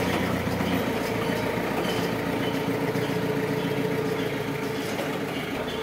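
Linde counterbalance forklift's engine running steadily as the truck manoeuvres, a constant mechanical hum with a held mid-pitched tone.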